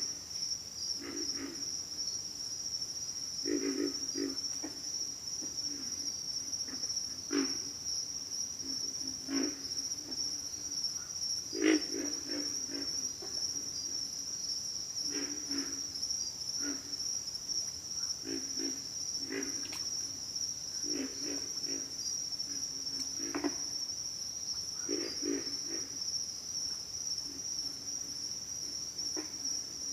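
Pig frogs grunting: short, low, pig-like grunts, singly or in quick runs of a few, every second or two. Under them runs a steady high chorus of insects.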